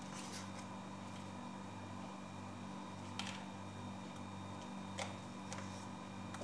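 A steady low mechanical hum with a few short, light clicks and taps as frozen dumplings are picked off a tray and dropped one by one into a pot of yogurt.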